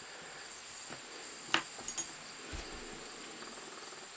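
A few sharp small metallic clicks from a Draper 40 mm security padlock being handled, about a second and a half and two seconds in, over a steady high-pitched whine.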